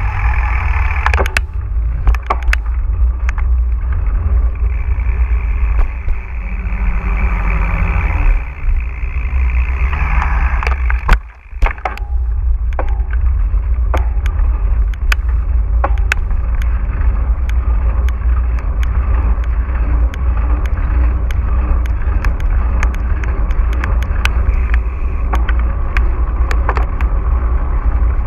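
Mountain bike riding over rough ground, heard through an action camera: a steady low wind rumble on the microphone with frequent sharp clicks and knocks from the bike rattling. There is a brief lull with a loud knock about eleven seconds in.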